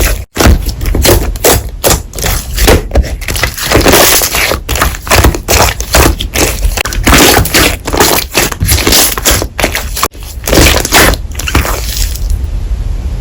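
Slime being pressed and worked by hand: a rapid series of sticky clicks and pops that quiets shortly before the end.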